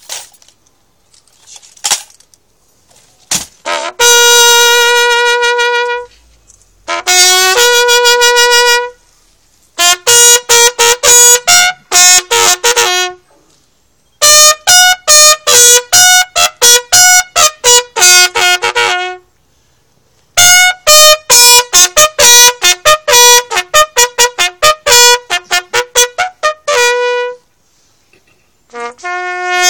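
A bugle call sounded as a police funeral salute: starting about four seconds in, long held notes alternate with fast runs of short repeated notes on a few fixed pitches, in phrases with short pauses between them.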